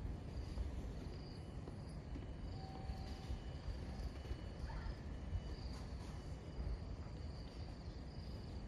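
Insects singing in a high trill that swells and fades about once a second, over a steady low rumble of outdoor ambience.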